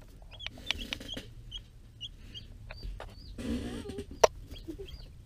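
Newly hatched chicks peeping: many short, high chirps. About four seconds in there is a sharp tap, a chick pecking at the camera.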